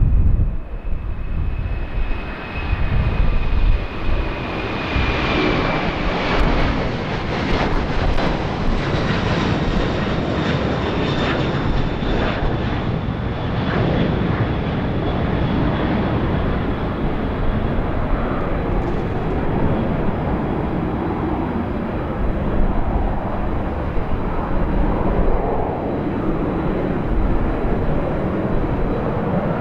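Boeing 767-300F freighter's twin General Electric CF6 turbofans at takeoff thrust as it lifts off and climbs away: a loud, steady jet rumble with a high whine that slides slightly lower over the first few seconds. Then comes a stretch of crackling, after which the rumble goes on undiminished with a thin high tone.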